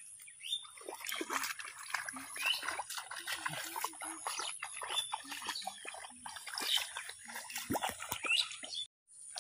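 Bare feet sloshing and splashing through shallow muddy paddy water in irregular steps, with a brief cut-out near the end.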